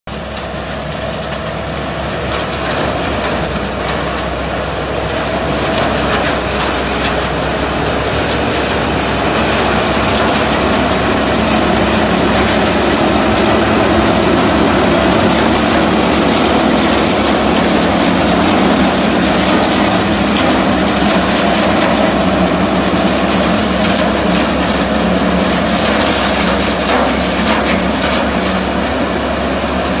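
Sugarcane combine harvester cutting standing cane, its engine and cutting gear running steadily under load. It grows louder over the first several seconds, then holds steady.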